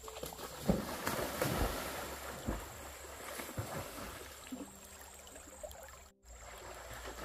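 Stream water sloshing and splashing, with several sharp splashes in the first four seconds, then settling to a quieter steady rush.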